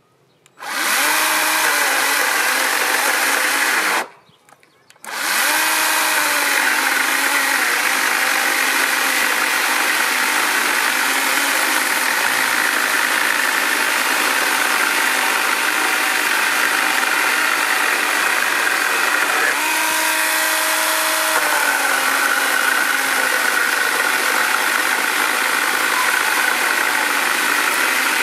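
Parkside PKSA 20-Li B2 20 V cordless chainsaw running and cutting through a 195 by 125 mm timber beam: a steady electric motor whine with chain and sawdust noise. It starts about half a second in, stops briefly around four seconds, then restarts and runs through the cut, its pitch dipping now and then.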